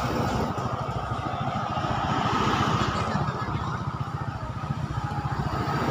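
Road vehicles approaching and passing: car and motorcycle engines running, over a steady low engine rumble close by that swells a little twice.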